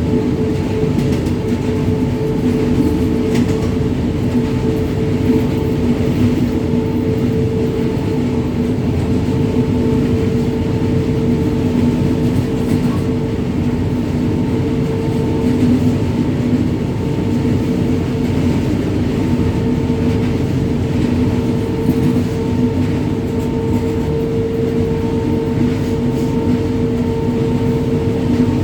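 WAG-9 three-phase electric locomotive running along the track: a steady machine hum with held tones over continuous rumbling wheel and track noise.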